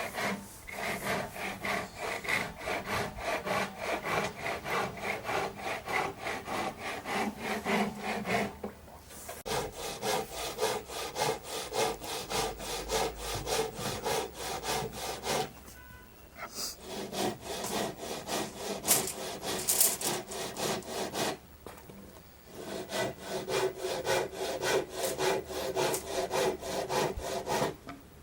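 Hand saw cutting through a thick timber plank, with fast, even back-and-forth strokes in several runs broken by short pauses.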